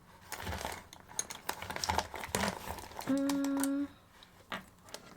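Crinkling and small clicks of items being handled close to the microphone, with one short steady hum-like tone about three seconds in.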